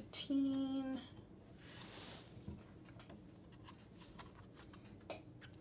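Faint handling sounds: a soft swish of silk as the furisode sleeve is smoothed, and a few light ticks as a clear plastic ruler is slid and set down on the fabric to measure the sleeve.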